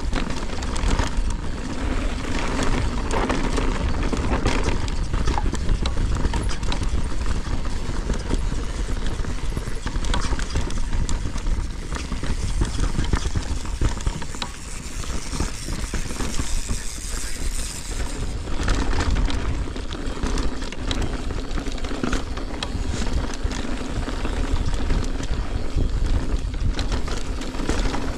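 Mountain bike ridden down a rough dirt trail: tyres running over dirt and stones, the bike rattling with many small knocks, and wind rumbling on the camera microphone.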